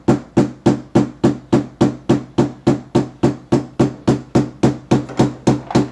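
Rubber mallet tapping the end of a metal scraper spatula in a steady rhythm of about three and a half blows a second, each with a short ringing knock. The blows drive the spatula under the base layer of a resin 3D print to pop it off the printer's build plate.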